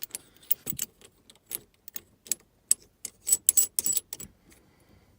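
Black plastic collar being twisted up onto the threads under a shift knob by hand: irregular plastic clicks and rattles, busiest and loudest about three to four seconds in.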